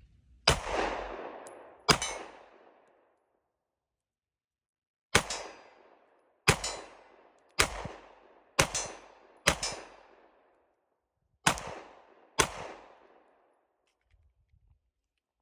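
Nine 9mm handgun shots fired one at a time at an uneven pace, each a sharp crack with a short echoing tail. Two come close together near the start, then after a pause a run of five about a second apart, then two more.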